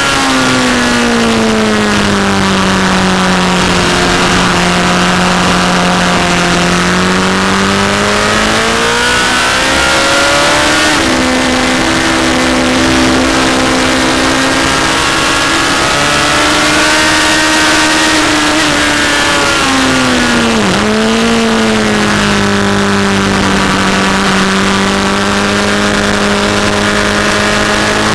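Onboard sound of a Honda CBR1000 inline-four sportbike engine at speed on track, under heavy wind rush. The engine note falls over the first few seconds, jumps up about eleven seconds in, and dips sharply and recovers around twenty seconds in, with the gear changes and throttle of a fast lap.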